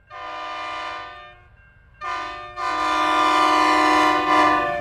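Multi-tone locomotive air horn sounding a chord three times: a blast of about a second, a short blast, then a longer, louder blast.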